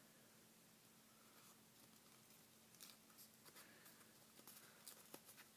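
Faint crinkling and soft ticks of folded paper being handled and pressed into shape, mostly in the second half, over a faint steady hum of room tone.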